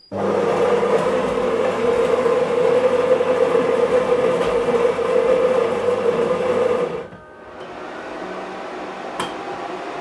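Saeco fully automatic espresso machine running through a brew cycle: a steady machine hum starts suddenly, runs about seven seconds, then drops to a quieter hum, with a single click near the end.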